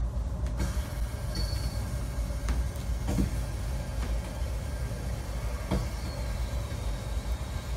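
Cat purring steadily close to the microphone while being stroked, a low continuous rumble, with a few light clicks.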